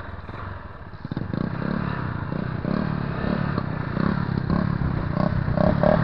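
Small motorcycle engine running as the bike rolls slowly over a rutted, muddy dirt track, with rattles and knocks from the bike over the bumps. The engine gets louder about a second in.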